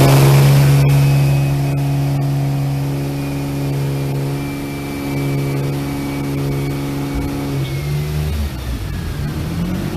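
Single-turbo VQ35DE V6 of an Infiniti G35 running on the dyno, held at a steady engine speed for about eight seconds, then its revs drop near the end. A faint high whistle sits above it, slowly falling in pitch.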